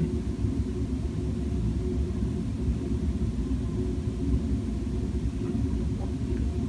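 A steady low rumble of background noise, with no distinct events.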